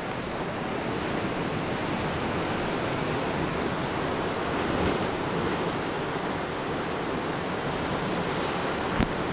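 Ocean surf breaking on a rocky shore: a steady rushing wash of waves, with one short sharp click near the end.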